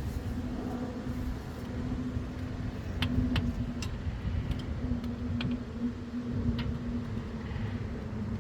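An engine running steadily with a low hum, with a few sharp clicks between about three and seven seconds in.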